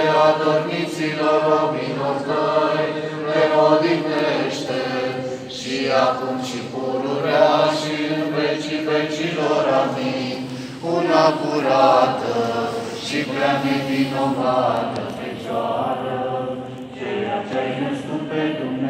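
A choir singing Orthodox liturgical chant for a memorial service for the dead, in long sung phrases with short breaks between them.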